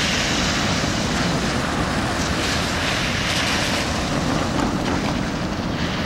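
Cars passing on a rain-wet road, their tyres hissing on the wet pavement, over a steady low rumble.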